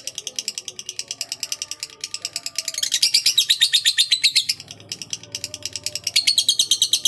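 Rapid, evenly spaced high chirps, about ten a second, broken by short pauses, from a bird or other small animal.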